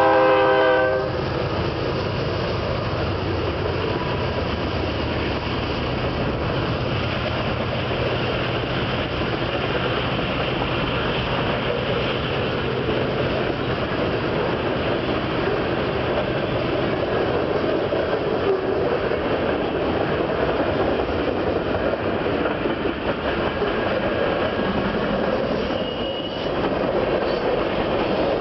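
BNSF freight train passing close by: a diesel locomotive's horn cuts off about a second in, and the locomotives' low engine drone gives way after about 17 s to the steady rolling rumble and wheel-on-rail clatter of freight cars. A short wheel squeal sounds near the end.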